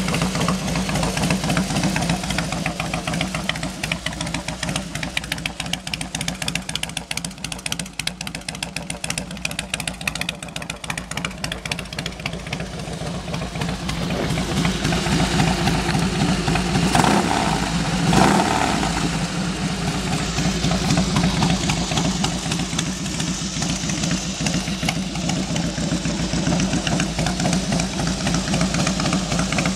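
2001 Harley-Davidson Softail Springer's Twin Cam 88B V-twin idling with a steady, even beat, revving briefly twice about two-thirds of the way through.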